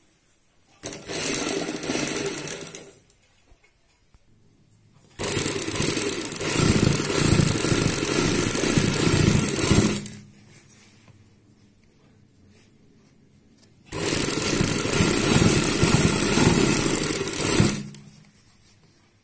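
Sewing machine stitching in three runs, about two, five and four seconds long, with short pauses between. A single-sided piping foot is sewing a fine cord into a red fabric strip to make doori piping.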